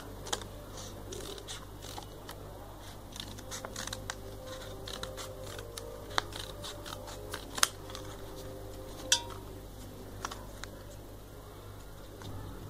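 Scissors snipping through folded green colour paper to cut out a leaf shape: a run of small cuts and paper rustles, with a few sharper clicks of the blades, over a steady low hum.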